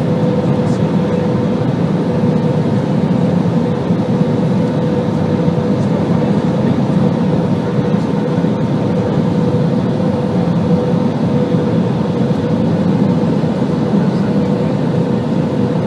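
Airbus A320 cabin noise: a steady rumble of engines and airflow with a constant mid-pitched whine running through it.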